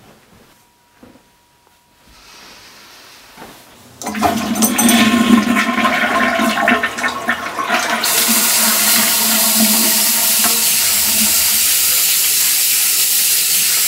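Toilet flushed about four seconds in: a sudden loud rush of water that settles into a steady hiss of running water.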